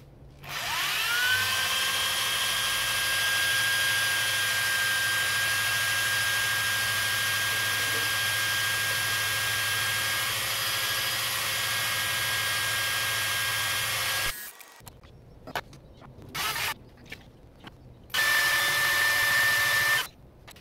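Corded electric drill driving a drill-powered pump to circulate coolant through an electric drive unit for a leak test. The motor spins up with a rising whine about half a second in and runs steadily, cuts off suddenly after about fourteen seconds, gives two short blips, then runs again for about two seconds near the end.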